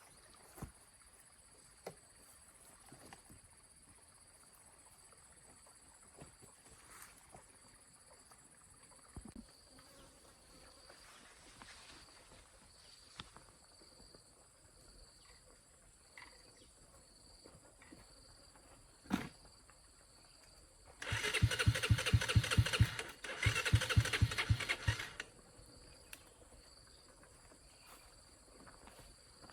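A small engine cranked in two short goes of about two seconds each, a rapid even pulsing that cuts off abruptly each time without the engine staying running. Faint steady insect chirring and a few light clicks lie underneath.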